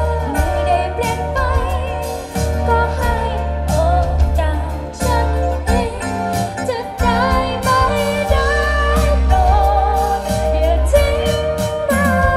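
A live band playing, with a singer carrying a wavering melody over heavy bass and regular drum hits.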